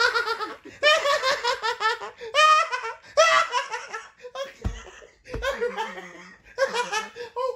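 Loud, high-pitched laughter in repeated bouts, the helpless laughter of someone having their feet tickled, with two dull thumps a little past halfway.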